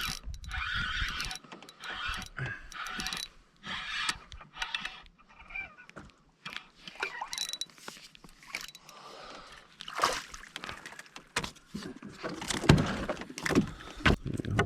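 Scattered knocks, clicks and rattles of fishing tackle being handled in a canoe, louder near the end.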